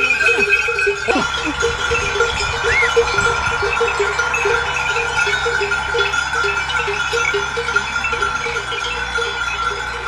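A flock of sheep on the move, with many bells ringing steadily and a few bleats in the first second or so.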